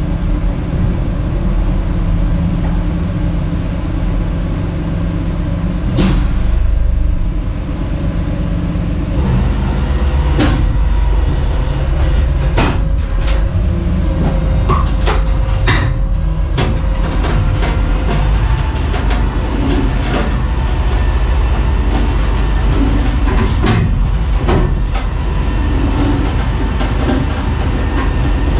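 Steady low rumble of the rollback tow truck's engine running to power its winch, with sharp knocks, clanks and creaks, several between about 10 and 16 seconds in, as a heavy lathe on a wooden pallet is dragged across the box truck's floor on the winch cable.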